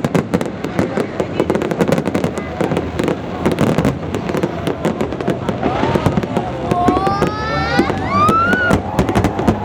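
Fireworks going off: a dense, rapid crackle of many sharp bangs, with rising and falling whistling tones over it in the second half.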